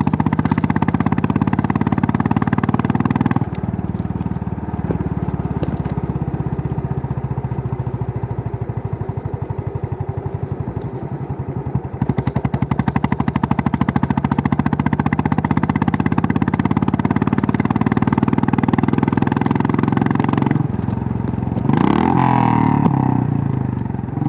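Royal Enfield Classic 350's single-cylinder engine running under way, a rapid steady beat of exhaust pulses. It is louder for the first few seconds, eases off, then picks up again about halfway through. Near the end there is a brief sound of wavering pitch.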